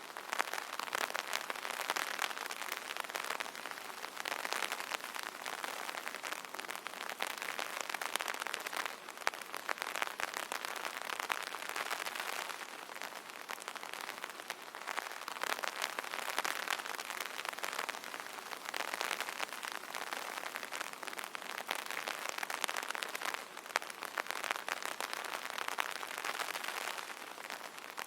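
Rain pattering on an umbrella canopy: many drops ticking at once, swelling and easing in waves every few seconds.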